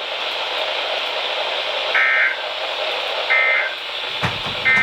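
Weather-radio static hiss broken by three short, identical warbling data bursts a little over a second apart: the EAS/SAME digital end-of-message code that closes a broadcast weather warning.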